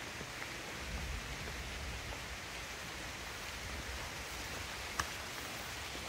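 Steady rain falling on garden plants, an even hiss, with a brief low rumble about a second in and a single sharp click near the end.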